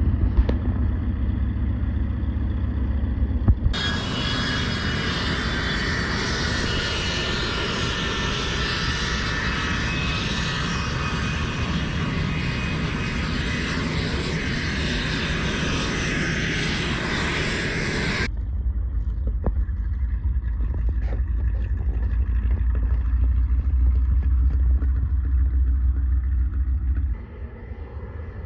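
Aircraft engines running, heard in three sections with abrupt changes about four seconds in and about eighteen seconds in. The middle section is brighter and fuller, with slowly sliding engine pitch.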